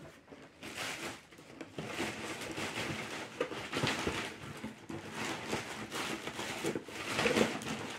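Cardboard box and packaging rustling and scraping as a folding metal-and-plastic dish-drying rack is unpacked by hand, with irregular swells of noise and a few light knocks.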